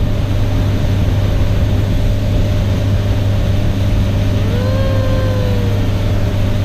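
Bass boat's outboard motor running steadily under way, a loud continuous drone with a low hum. About four and a half seconds in, a child's voice sounds one long held call that rises and then slowly falls.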